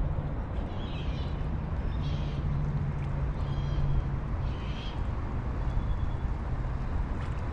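Birds calling, about five short harsh calls spaced roughly a second apart, over a steady low background rumble.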